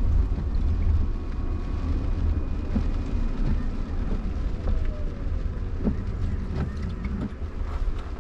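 Cabin noise inside a Jaguar I-PACE electric SUV driving on a wet road in rain: a steady low rumble of tyres on wet pavement, with occasional taps of rain and wiper strokes on the windscreen. About five seconds in, a faint whine falls in pitch as the car slows.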